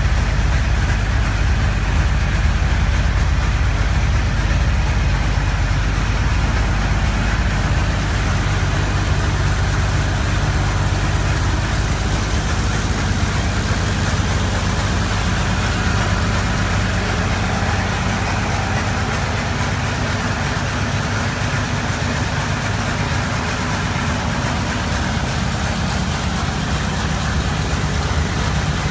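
Engine of a 1931–32 Ford roadster hot rod idling steadily.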